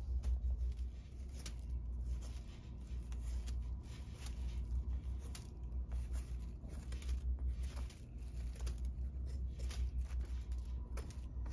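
Kitchen knife scraping the spines off a nopal (prickly pear cactus pad) in many short, uneven strokes, with a plastic bag crinkling beneath. A steady low hum runs underneath.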